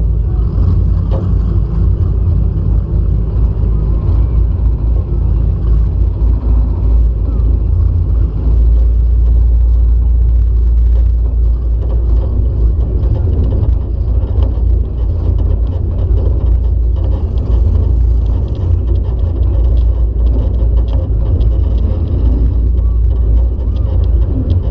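Demolition derby car's engine running loud and close, with a heavy low rumble, as the car drives across the dirt arena, heard from a camera mounted on the car.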